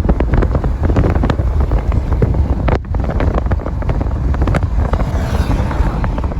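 Strong wind buffeting the microphone on a moving boat, a heavy rumble with many irregular knocks and splashes of water. It cuts off abruptly near the end.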